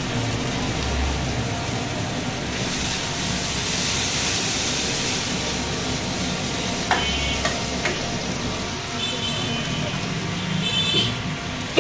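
Flat steel griddle sizzling as chicken pieces fry and burger buns toast on it, the sizzle swelling for a few seconds after the buns go down. A metal spatula scrapes and taps on the plate, giving a few sharp clicks about seven seconds in.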